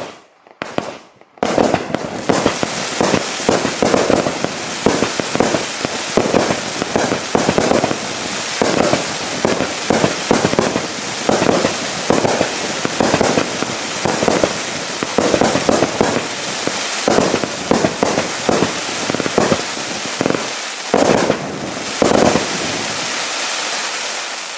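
A 500-gram consumer fireworks finale cake firing. After a few short pops it breaks into a dense, continuous barrage of bangs over a steady rushing noise, about a second and a half in, with one brief lull near the end.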